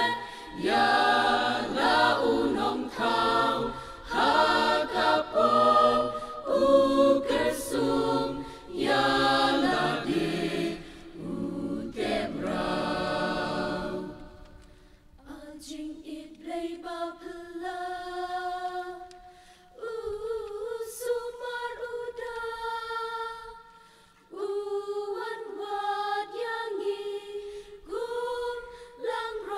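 Mixed church choir singing unaccompanied in several parts. About halfway through, the full, loud sound with low men's voices drops away to a quieter passage sung in higher voices only.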